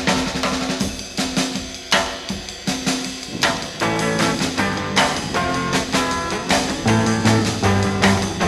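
Background music: a drum-led rock track, a bass line and sustained notes coming in about four seconds in.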